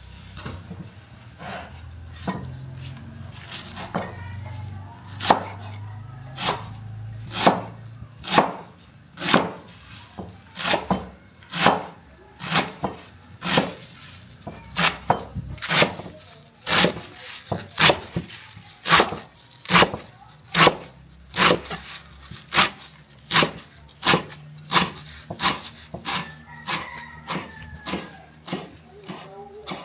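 Knife chopping on a wooden board in steady, sharp strokes, about one a second at first and quickening to nearly two a second about halfway through.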